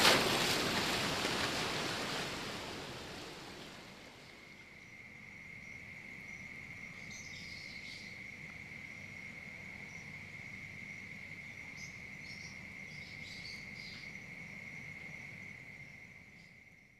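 A loud rushing noise fades out over the first four seconds. Then a cricket trills steadily on one high pitch until the end, with a few faint higher chirps now and then.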